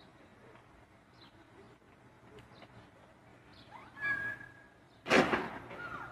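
Faint birds chirping, then a brief high-pitched sound about four seconds in, followed about a second later by a sudden loud crash.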